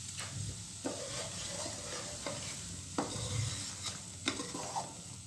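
Semolina roasting in hot ghee in a stainless steel karahi, giving a steady sizzle while a spoon stirs it. The spoon taps and scrapes against the pan about three times.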